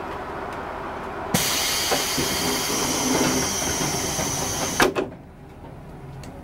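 Pneumatic sliding door of a diesel railcar closing: a loud hiss of air starts about a second in, runs for about three and a half seconds and ends with a thud as the door shuts. The railcar's engine idles steadily underneath.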